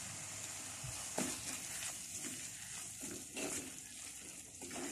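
Onion-tomato masala paste frying in oil with a steady sizzle, stirred with a wooden spatula that scrapes the pot a few times.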